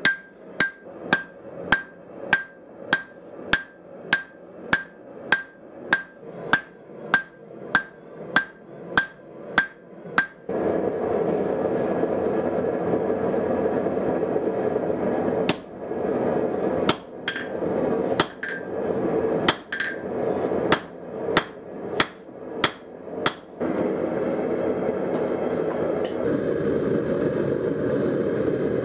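Hand hammer forging hot reclaimed field-harrow spring steel on an anvil: for about ten seconds, a steady rhythm of a little under two blows a second, each with a short ringing anvil tone. Then the steady roar of a propane forge comes in, with a further run of irregular hammer blows over it, and only the roar near the end.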